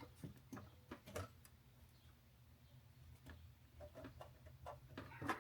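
Scattered light clicks and taps of small parts being handled and fitted by hand, with a sharper knock just before the end.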